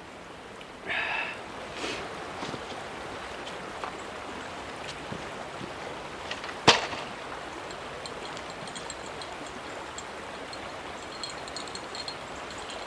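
Steady rush of a swollen river flowing, with one sharp knock about seven seconds in.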